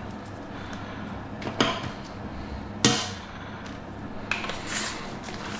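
Knocks and clicks of toilet cistern siphon parts being handled during a repair: two sharp knocks, the louder about three seconds in, then a few lighter clicks.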